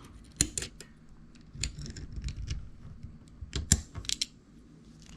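Small metal clicks and scraping from the parts of a Remington Rand 1911 pistol as the recoil spring and its plug are worked back in under spring pressure. Sharpest clicks a little before four seconds in.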